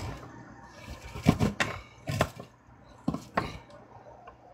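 Frozen watermelon chunks being pressed and packed by hand into a plastic blender jar, knocking against each other and the jar walls: several separate, irregular knocks and clunks.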